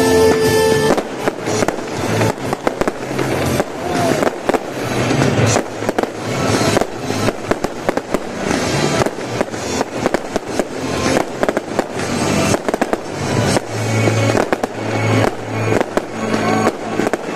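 Fireworks bursting and crackling in rapid succession, many sharp bangs close together, with music playing underneath.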